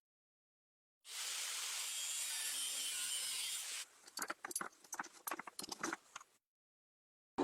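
A steady hiss for nearly three seconds, then a quick, irregular run of about a dozen sharp knocks, with silence before and after.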